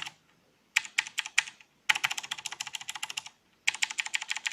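Fast typing on a mechanical keyboard fitted with 3D-printed PLA keycaps: three bursts of rapid key clicks with short pauses between them, a test showing that the printed keycaps work normally.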